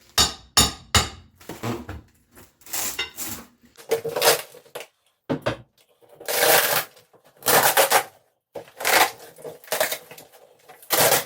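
Floor demolition work on old kitchen flooring: a quick cluster of sharp knocks in the first second, then a string of separate harsh, noisy bursts about a second apart.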